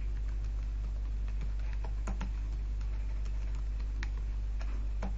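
Keystrokes on a computer keyboard, a run of irregular clicks as a command is typed, over a steady low hum.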